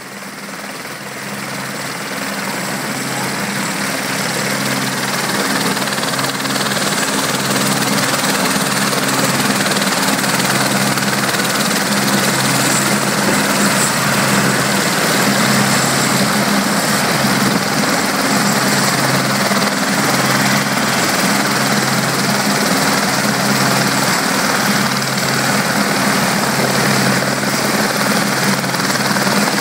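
Eurocopter AS550 Fennec helicopter running on the ground with its rotor turning, before takeoff: a steady high turbine whine over a regular low rotor beat and rushing noise, fading up over the first few seconds, then holding steady.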